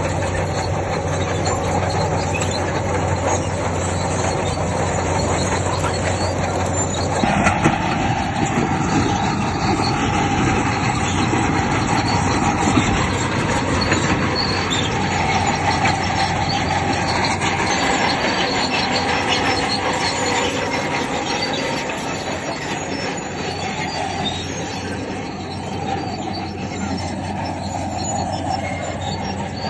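Bulldozer working: diesel engine running with the squeal of steel crawler tracks. About seven seconds in, the sound turns busier and noisier as the tracks get moving.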